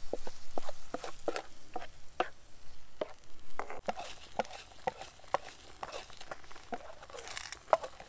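Wooden spatula scraping and tapping against a titanium non-stick skillet in irregular strokes as ground meat and eggs are stirred and scrambled, with a faint sizzle of frying underneath.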